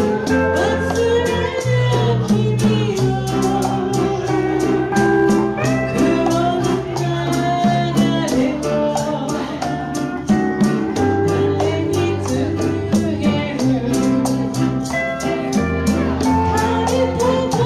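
A woman singing a slow melody with a small live band: congas and maracas keep a steady rhythm under guitar and a low bass line.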